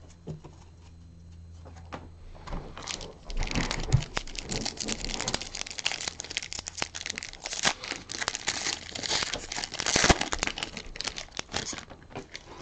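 Foil wrapper of a retail pack of football trading cards crinkling and being torn open by hand. The dense crackling starts about two and a half seconds in and stops shortly before the end.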